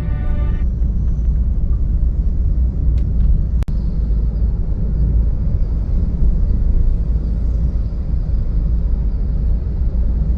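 A loud, steady low rumble with no clear rhythm, heavy in the bass. Music ends in the first second, and there is a brief click and dropout a few seconds in.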